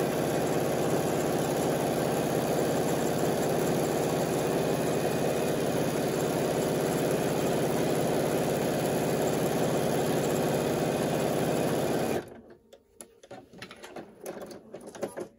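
Bernina B 790 PLUS computerized sewing machine stitching steadily at a fast, even rate, then stopping abruptly about twelve seconds in. A few faint clicks and handling sounds follow.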